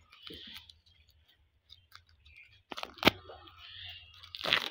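Plastic shrink-wrap on a new book being handled and torn open: scattered small crinkles and clicks, a sharp snap about three seconds in, then a louder burst of crinkling and tearing near the end.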